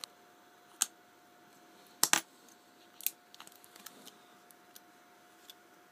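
Small sharp clicks and taps of the LG GD510 mobile phone's plastic and metal parts being handled and prised apart, about eight in all, the loudest a quick double click about two seconds in.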